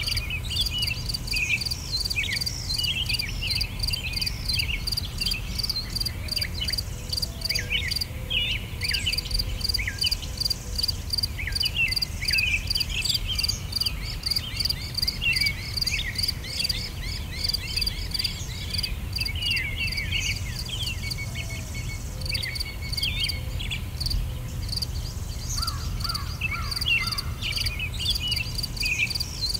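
Outdoor nature ambience: insects chirping in a steady, even pulse, with many short bird chirps and calls over it and a low rumble underneath.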